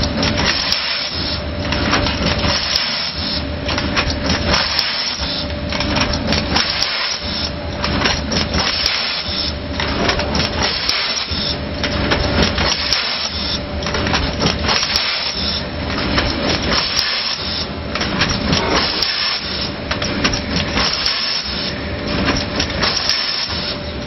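Rotary pouch filling and packing machine running, filling shampoo into plastic pouches: a steady mechanical clatter of clicks and knocks with a cycle that repeats about every two seconds as the carousel indexes round.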